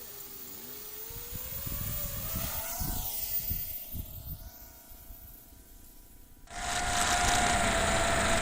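FPV quadcopter's electric motors whining, their pitch gliding up and down with throttle changes, with low wind rumble on the microphone. About two-thirds of the way through, loud music cuts in abruptly.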